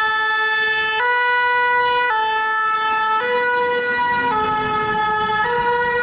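Fire engine's two-tone siren, alternating steadily between a lower and a higher note about once a second.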